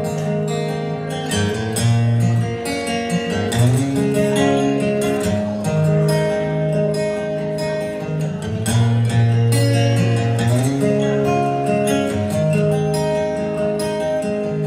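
Solo acoustic guitar strummed, playing a chord progression as a song's instrumental intro before any singing.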